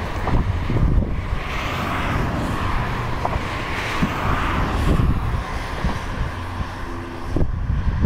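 Wind buffeting the microphone, a heavy uneven low rumble, with a rushing noise that swells and fades every couple of seconds.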